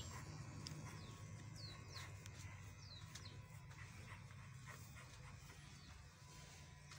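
Faint steady hum of an electric hair clipper at work, with short high chirps that glide downward, repeating every half second to a second, from birds.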